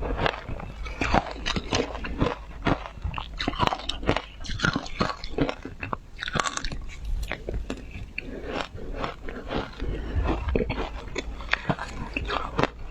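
Hard ice being bitten and chewed, a continuous run of irregular, crackly crunches.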